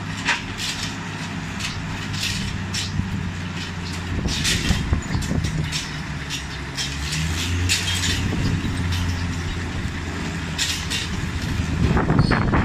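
Engines of a working crane and a loaded cane truck running as a steady low drone that swells for a couple of seconds near the middle, with frequent short sharp clanks and hisses over it.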